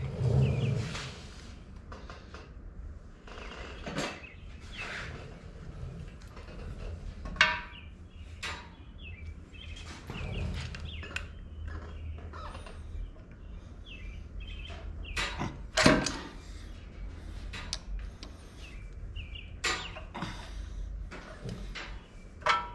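Irregular clunks, clicks and scrapes of a steel lower control arm and ratchet strap being worked by hand into the frame brackets, with a few sharper metal knocks.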